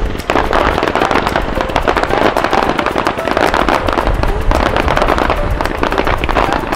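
Fireworks crackling: a dense, continuous stream of small pops and crackles from bursting crackle-effect shells, starting suddenly just after the start.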